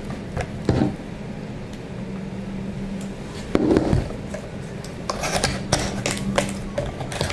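Cardboard box being opened by hand: fingers scratching and peeling the sticky seal dots on the top and prying up the lid flap, in scattered clicks and scrapes that come thickest near the end. There is one dull thump about halfway, over a steady low hum.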